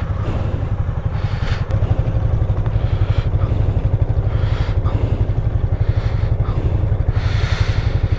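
Single-cylinder motorcycle engine idling steadily, with a few short rushes of noise over it.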